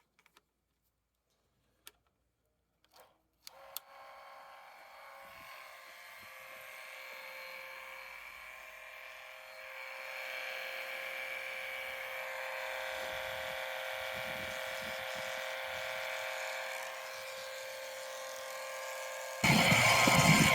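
Small electric fluid pump starts about three and a half seconds in, after a few light clicks, and runs steadily with a whine as it pumps fresh oil into the gearbox through the fill tube. The sound grows slowly and gets much louder near the end.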